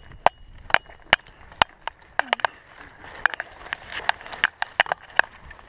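Mountain bike clattering over a rough dirt trail: a run of sharp, irregular clicks and knocks from the frame and components, with a faint hiss of tyres on the dirt in the second half.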